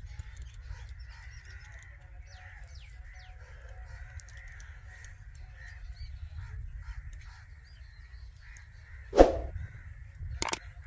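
Parrot calls: many faint short chirps and whistles, then one loud harsh squawk about nine seconds in and two sharp calls near the end, over a steady low rumble.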